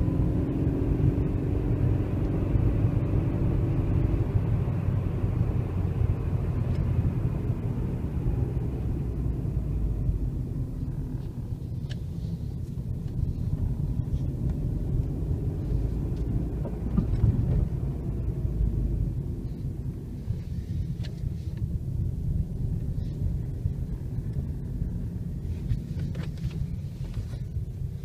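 Suzuki Reno hatchback being driven: a steady low rumble of engine and road noise, with faint shifts in engine pitch in the first few seconds.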